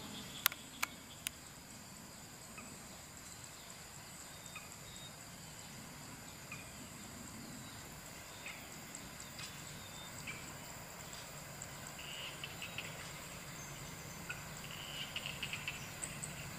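Insects chirring steadily in high-pitched tones, with scattered short bird-like chirps. Three sharp clicks come in the first second and a half.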